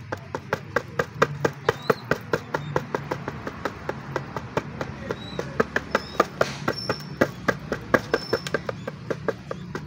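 A hen pecking rice grains from a shallow plastic tray: sharp clicks of her beak striking the plastic, quick and uneven at about four a second. A steady low hum runs underneath, with a few short high chirps.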